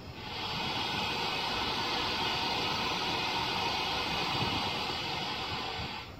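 A steady hiss of compressed air venting from a train, starting abruptly and cutting off about six seconds later.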